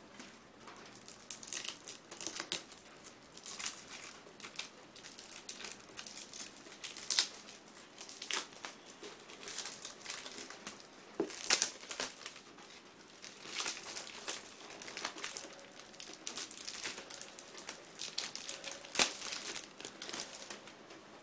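Clear plastic shrink-wrap being peeled and torn off a DVD box set, crinkling and crackling irregularly, with a few sharper, louder crackles.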